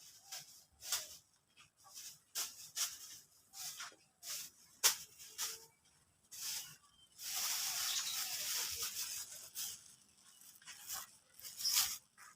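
Young canaries chirping in short, scattered high calls, with a longer hissy stretch of sound lasting about two seconds a little past the middle.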